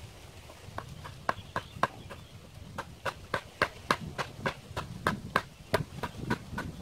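Repeated sharp knocks of a hand tool striking, about three a second, starting about a second in.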